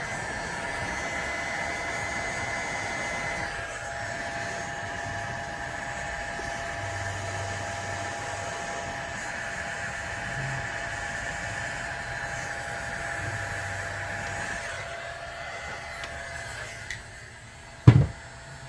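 Hot air rework station blowing with a steady whine. The sound dies away about fifteen seconds in, and a single sharp knock comes near the end.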